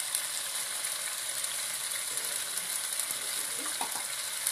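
Onions, garlic and diced tomatoes sizzling in oil in a stainless steel wok: a steady frying hiss with fine crackles.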